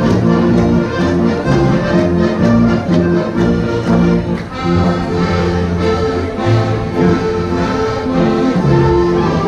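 Folk dance music played by a small live band, a steady rhythmic dance tune.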